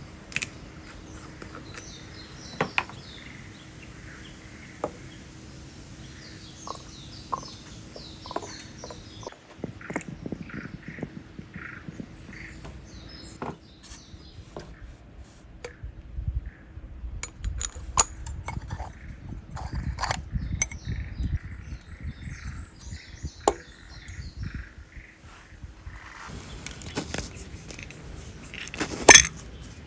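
Small birds singing in short repeated chirping phrases, with scattered sharp clicks and knocks throughout, a low rumble in the middle and a louder knock near the end.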